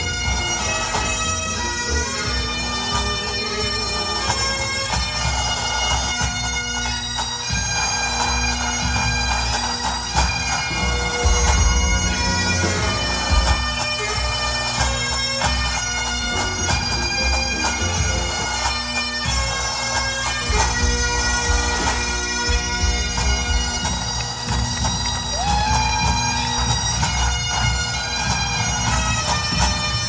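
Great Highland bagpipes playing a tune over their steady drones, with pipe band drums beating underneath.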